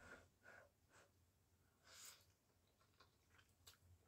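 Near silence: a few faint breaths and small clicks from a person eating noodles off a fork.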